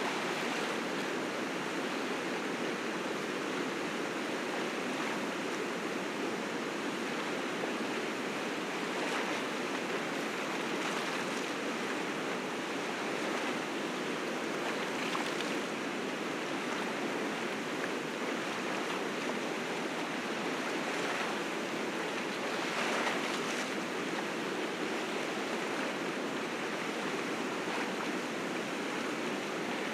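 River rapids in spring flood, snowmelt water rushing steadily over rocks, a continuous roar of whitewater with faint brief splashes.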